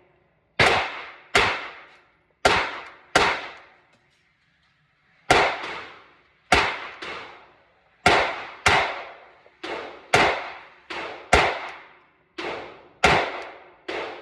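A Glock 26 9mm pistol firing a string of single shots, about one to two a second, each with a short echoing tail. There is a pause of about two seconds a little before the middle, and then the shooting resumes.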